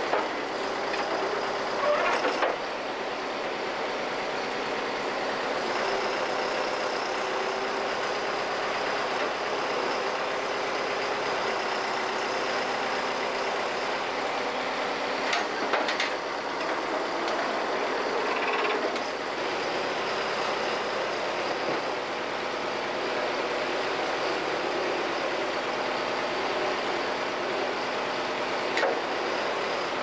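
John Deere 410 backhoe's engine running steadily while its hydraulics move the boom and bucket, with a few short metal knocks along the way.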